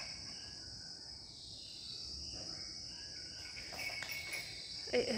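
Steady high-pitched chirring of insects, with a short voice-like sound just before the end.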